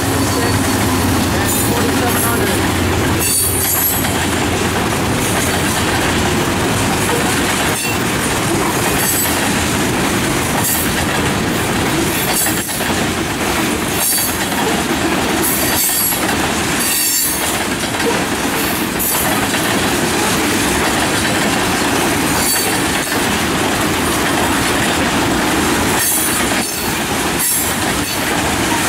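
A freight train of tank cars rolls past at close range, with a steady rumble and clatter of wheels on the rails. Brief high wheel squeals break through every few seconds.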